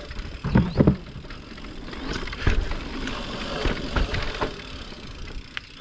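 Mountain bike rolling over a dirt trail, with knocks and rattles from the bike over rough ground. The loudest thumps come about half a second in, again just before a second, and near two and a half and four seconds in.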